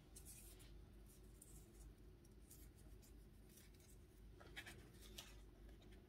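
Near silence with a few faint rustles of paper as journal pages are handled, a little louder about four and a half seconds in.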